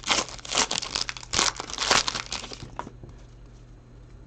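Wrapper of a trading card pack being torn open and crinkled by hand: a run of irregular crackles that dies away about three seconds in.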